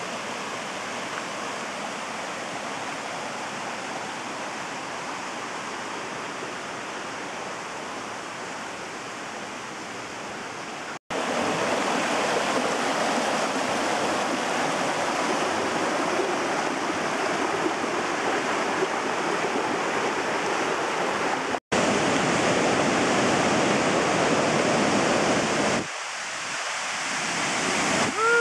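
Rushing water of a rocky mountain stream pouring over boulders and granite ledges, a steady roar of flow. It breaks off abruptly twice and comes back louder after the first break.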